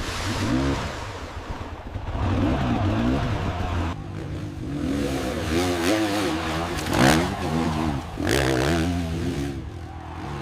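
Dirt bike engine revving up and down over and over, its pitch wavering, with two short rushing bursts of noise about seven and eight and a half seconds in.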